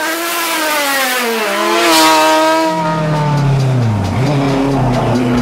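Racing car engines at high revs, their pitch climbing and dropping with gear changes. A deeper engine note comes in just before the middle and dips sharply about four seconds in before picking up again.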